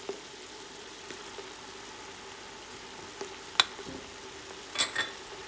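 Bok choy, carrots and bell peppers frying in a stainless steel pot with a steady, faint sizzle. A sharp click comes a little past halfway, and two more near the end.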